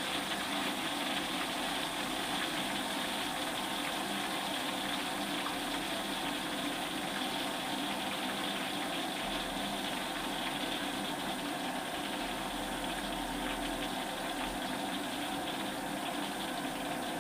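Potato slices deep-frying in hot oil in an aluminium wok: a steady sizzle. The oil's bubbling has thinned, the stage at which the slices have lost most of their water and the flame is turned down.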